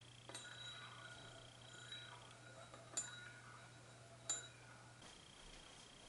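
A metal spoon clinking against a ceramic bowl three times, each clink ringing briefly, over a faint low hum that stops about five seconds in.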